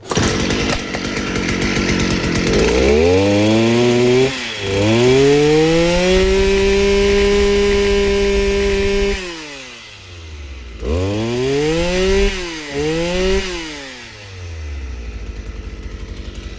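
Stihl 250 brush cutter's two-stroke engine running after its repair. It idles, revs up and holds high for about four seconds, drops back to idle, gives a few quick throttle blips, then settles back to idle. The repairs are a broken bolt and a new fuel tank, and it runs fine.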